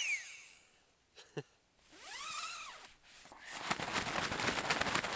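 A small handheld air-bed pump's motor whine falling away in pitch as it is switched off, then a click. From about three and a half seconds in, steady crackling rustle of nylon tent fabric being handled.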